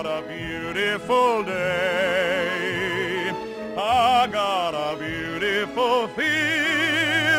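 A male baritone singing a show tune, with wide vibrato on long held notes and gliding changes between them.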